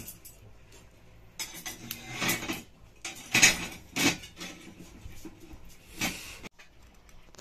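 Metal tongs scraping and clanking against a metal griddle and pan on a wood-fired stove, in several separate clatters, the loudest about three and a half seconds in.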